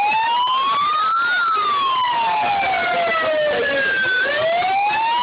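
Police sirens wailing, with more than one sounding at once. Each tone climbs and falls slowly, one rising for about a second and a half and then falling for nearly three seconds before rising again.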